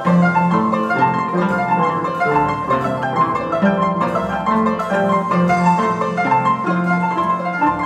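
Paraguayan harps playing quick runs of plucked notes over a lower bass line.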